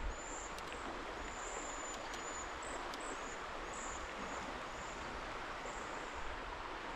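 Steady rush of river water, with a run of short, thin, high chirps from a small bird over it through the first few seconds.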